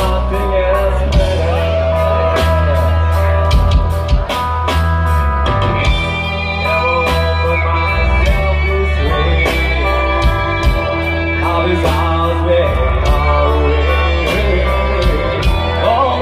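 Rock band playing through a large sound system: electric guitar, a steady drum beat and heavy bass, with some singing.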